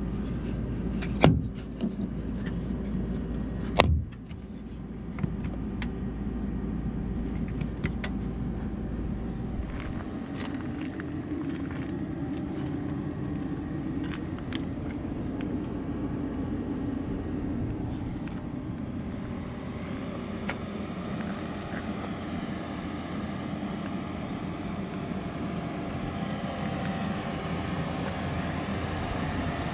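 Cabin sound of a 2022 Ford F-150 Lightning electric pickup: steady vehicle noise, with two sharp knocks in the first four seconds and a faint wavering whine from about twenty seconds in.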